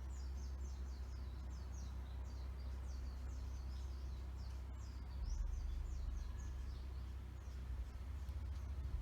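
Budgerigars chirping and chattering in quick, high-pitched notes, thickest in the first six seconds, over a steady low hum.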